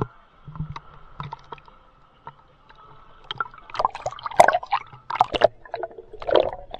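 Sea water sloshing and gurgling against an action camera's waterproof housing as it dips through the surface and under water. A few light clicks come first, then a run of loud splashing, gurgling bursts from about three and a half seconds in, over a faint steady hum.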